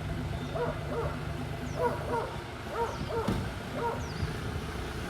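A dog barking repeatedly, in quick pairs about a second apart, over a steady low engine rumble.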